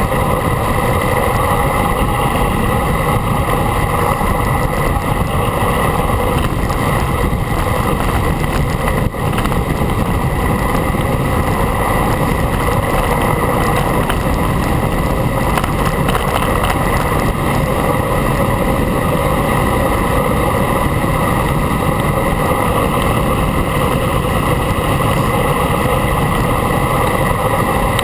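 Steady wind rushing over a camera mounted on a moving road bike, with a short break about nine seconds in.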